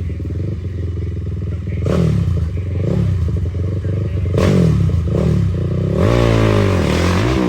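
Dirt bike engine running and being revved, its pitch climbing and dropping several times, with a longer rise and fall near the end.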